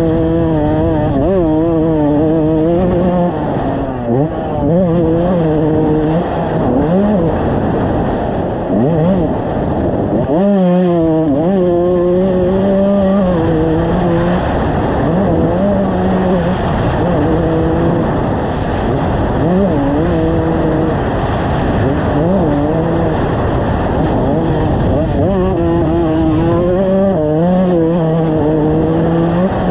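2001 Kawasaki KX125 single-cylinder 125cc two-stroke engine being ridden hard, its pitch rising and falling again and again with throttle and gear changes, with a sharp dip and quick climb about ten seconds in.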